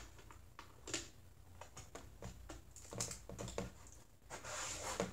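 Plastic Lego bricks clicking and rattling as they are handled and pulled apart on a tabletop: a dozen or so faint, irregular clicks, with a brief rustle near the end.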